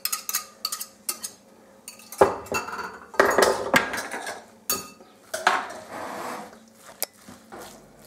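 A metal whisk and spoon clinking and scraping against glass bowls as whipped egg white is knocked off into grated zucchini and potato, then a spoon stirring the moist grated mixture in swishing strokes, with scattered sharp clinks on the glass.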